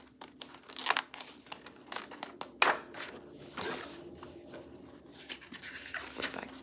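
Paper pages of a spiral-bound planner being turned and handled: irregular rustling with soft clicks, the sharpest about two and a half seconds in.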